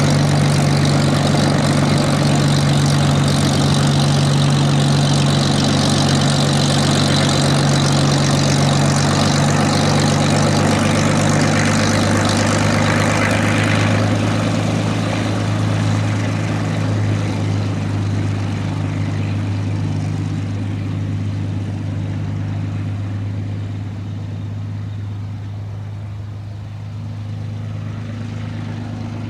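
Hawker Hurricane's Rolls-Royce Merlin V12 piston engine and propeller running at a steady pitch, loud at first, then fading gradually over the second half as the aircraft moves away.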